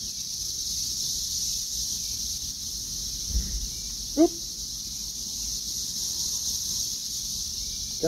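Chorus of cicadas, a steady high-pitched drone. About four seconds in there is one short pitched sound, just after a faint low thud.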